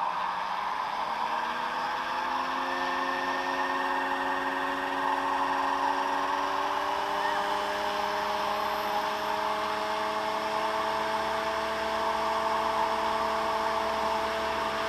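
Scale AS350 radio-controlled helicopter, 700 size, spooling up on the ground: the motor and rotor whine rises steadily in pitch over the first several seconds, then levels off as the rotor comes up to speed, over a steady rush of rotor noise.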